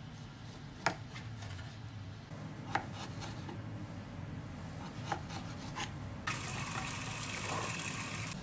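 Kitchen knife slicing raw pork belly on a plastic cutting board, the blade knocking sharply on the board a few times. About six seconds in, a steady hiss of running water starts abruptly.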